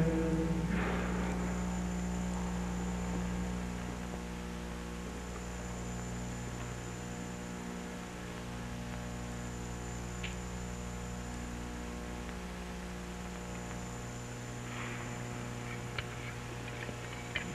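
Steady electrical mains hum with a thin high whine, heard in the recording. A few faint ticks come near the end, and the last of the chant dies away in the first second.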